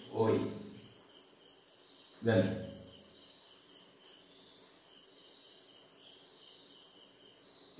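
A man's voice in two short bursts during the first three seconds, then a faint, steady high-pitched background hum.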